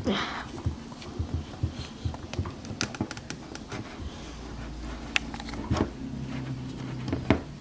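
Irregular small plastic clicks and taps as a toy speeder's parts are handled and pressed onto their plastic display base.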